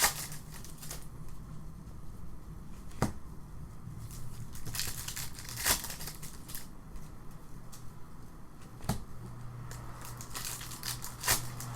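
Trading-card pack wrappers and cards being handled: crinkling and rustling, with sharp snaps about every three seconds.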